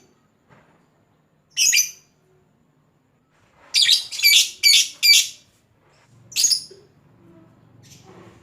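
Lovebird giving short, harsh, shrill calls: one a little over a second in, a quick run of four around four to five seconds in, and one more just after six seconds.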